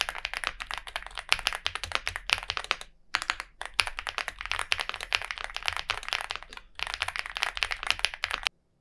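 Fast typing on a Chilkey ND75 mechanical keyboard set in its split O-ring mount: a dense run of keystroke clicks with two short pauses, cutting off suddenly near the end.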